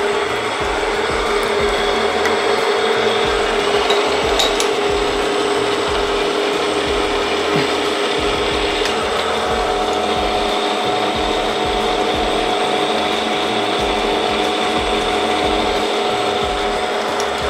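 Milling machine spindle running a small end mill through a steady cut, milling an oil groove in a lathe carriage saddle: a constant machine tone over an even cutting hiss.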